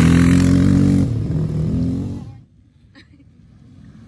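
A dirt bike engine running hard as the bike passes close by. Its pitch drops about a second in, and it fades out within the next second as the bike pulls away. Distant bike engines rise faintly again near the end.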